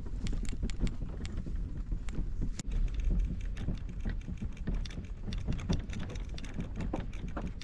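Footsteps of a person walking across grass, with irregular clicks and rustles over a low rumble from the moving microphone.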